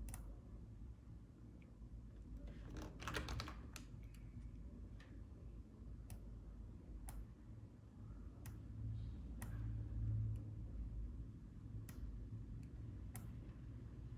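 Scattered clicks of a computer keyboard and mouse, with a quick run of keystrokes about three seconds in, over a low steady hum.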